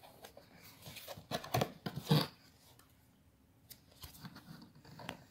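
Paper cards and cardboard packaging handled by hand: several brisk rustles and scrapes in the first couple of seconds, then lighter, scattered ticks and rustles.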